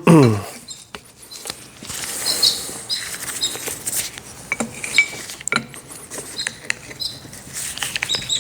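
Metal hand tools and hydraulic cylinder parts clinking and knocking on a workbench, in scattered irregular clicks and taps.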